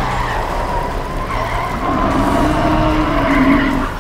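Cartoon sound effects of a bulldozer straining to tow a heavy truck: engine working hard under load while its crawler tracks spin and skid in loose dirt, loudest just before the end.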